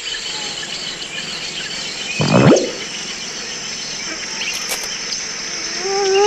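Steady chorus of insects with birds chirping over it. About two seconds in, a short loud sound drops in pitch. Near the end, a wavering pitched voice begins.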